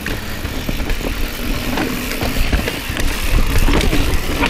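Mountain bike riding down a rocky trail: tyres rumbling over rock with a stream of small clatters and knocks from the bike, under wind rushing on the camera's microphone. It gets louder toward the end as speed builds.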